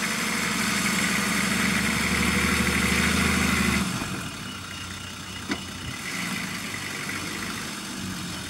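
Nissan Patrol's engine pulling under load as it crawls through snow and mud. The engine note grows a little louder, then falls away suddenly about four seconds in to a quieter run.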